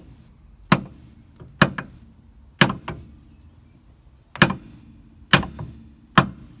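Hammer blows on a wooden block, driving a new kingpin bearing race into a Suzuki Jimny's steel swivel hub: about seven sharp strikes roughly a second apart, with a longer pause in the middle, several followed by a lighter knock.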